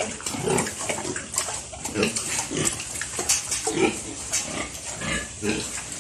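Sow grunting in short, low grunts, repeated every second or so, with scattered sharp clicks between them.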